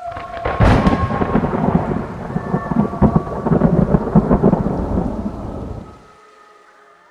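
Thunder: a sharp crack under a second in that rolls on as a crackling rumble and dies away at about six seconds.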